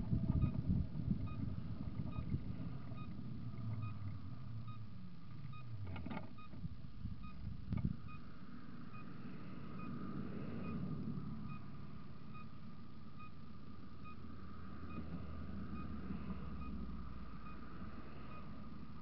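Inside a car: engine and tyre noise falling away as the car slows to a stop, then the engine idling, with a couple of knocks about six and eight seconds in. A turn signal ticks steadily throughout.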